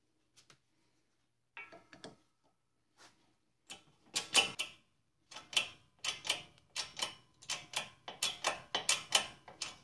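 Sharp metallic clicks from hand work on alternator parts. A few come singly early on, then a steady run of two or three a second starts about four seconds in.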